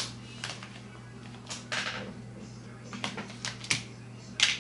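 A handful of irregular clicks and short clatters over a steady low hum, the loudest one near the end.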